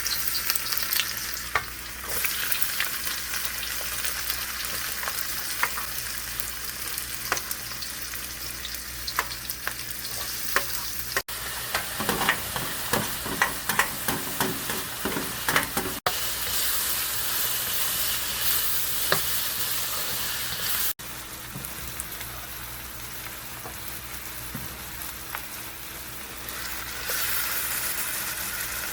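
Food sizzling in a hot pan while being stirred, with a utensil scraping and clicking against the pan, most busily about halfway through.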